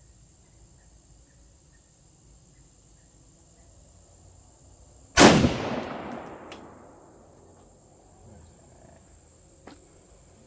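A single 6.5 Grendel rifle shot about five seconds in, sharp and loud, followed by a long echo that fades over about two seconds. A faint click comes near the end.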